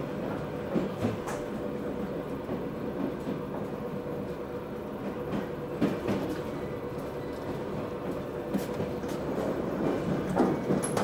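Moving suburban electric train heard from inside the carriage: steady running noise under a steady hum. Scattered short knocks and clicks come from the wheels.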